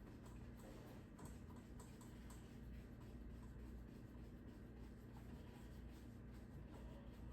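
Near silence: a low steady hum, with a few faint light ticks in the first few seconds.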